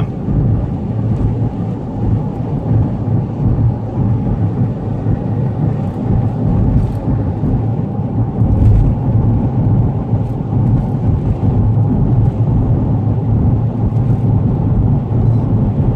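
Steady road and engine noise inside a moving Dodge car's cabin: a low, even drone of tyres and engine at cruising speed.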